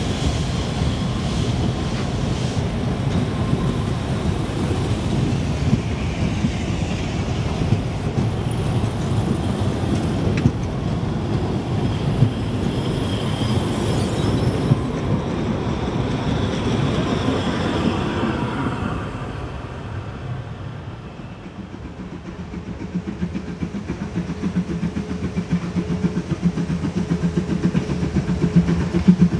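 Narrow-gauge train coaches rolling past, wheels clattering over the rail joints. After a drop in level about 20 seconds in, a steam locomotive approaches: a steady low hum with regular beats, growing louder.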